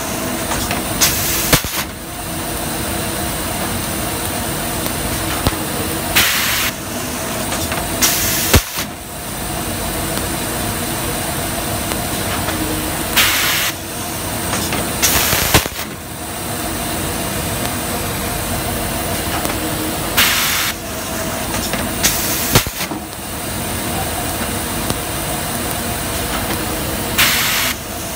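Plastic garbage-bag cutting machine running with a steady mechanical drone. Short hissing bursts come in pairs about two seconds apart, the pairs repeating roughly every seven seconds with the machine's cycle.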